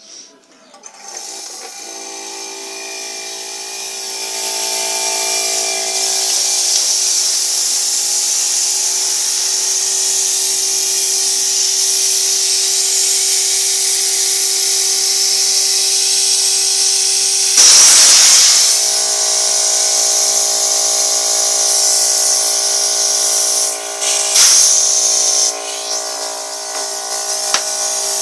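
Hermetic air-conditioner compressor, repurposed as an air compressor, starting up about a second in and then running with a steady electric hum while air hisses from its outlet hose. There is a louder burst of hiss about two-thirds of the way through and another near the end.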